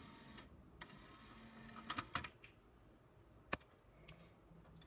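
Faint clicks and taps of handling, with a few quick clicks about two seconds in and one sharp click about three and a half seconds in.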